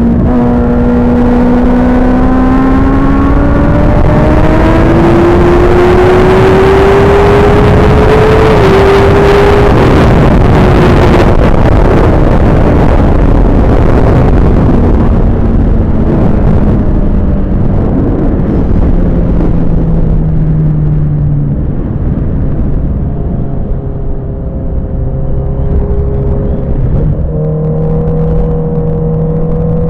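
Suzuki GSX-R1000 inline-four racing engine running hard under heavy wind rush. Its pitch climbs steadily for the first nine seconds or so, then falls slowly over the next ten, and holds lower with a few small steps near the end.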